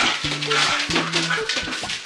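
Upbeat background music with a steady beat, with a short dog bark or yip right at the start.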